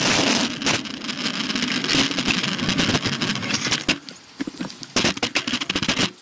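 Wind rush on a handlebar-mounted camera on a road bike, fading as the bike slows, followed by rapid irregular clicking and rattling from the bicycle as it coasts toward a stop.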